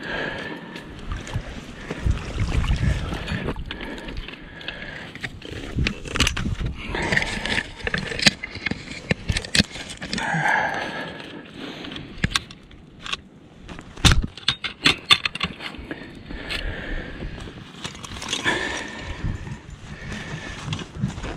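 Water splashing and sloshing as a beaver caught in a body-grip (Conibear-type) trap is hauled and handled in shallow creek water, with rustling rain gear. Many sharp clicks and knocks from the metal trap and gear throughout.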